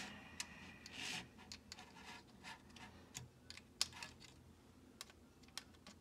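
Irregular light clicks and taps of a screwdriver against the plastic insides of an opened Microsoft Surface Precision Mouse, with a brief scrape about a second in.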